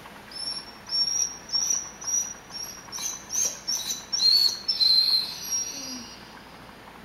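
Rhodesian Ridgeback whining in a string of short, high-pitched whines, about two a second, with the last few lower and drawn out. The whining is begging, set off by the smell of ground beef cooking.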